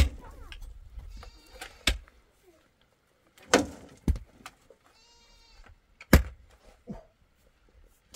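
Several sharp knocks, and an animal's short bleat-like call about five seconds in.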